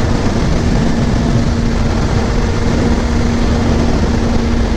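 Kawasaki motorcycle's engine holding a steady note at cruising speed, under heavy wind rush on the rider's microphone.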